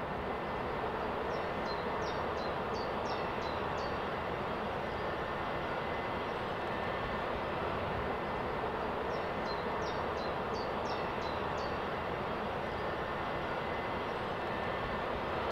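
Steady jet airliner engine noise. A bird sings two short runs of quick, repeated high chirps over it.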